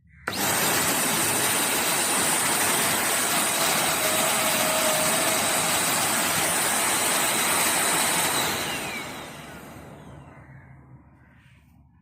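Midea 2-in-1 stick vacuum cleaner's motor switched on and running steadily with a high-pitched whine. It is switched off about eight and a half seconds in and winds down with falling pitch.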